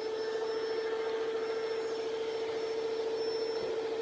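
Steam-bending heating gear running: a steady hum with one constant whine over a rushing noise, as the steamer comes up to temperature and a heat gun warms the bending mold.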